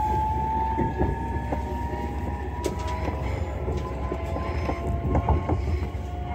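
Interior of an Öresundståg electric multiple unit running: a steady low rumble with a faint whine that rises slowly in pitch as the train gathers speed, and scattered clicks from the wheels over the track.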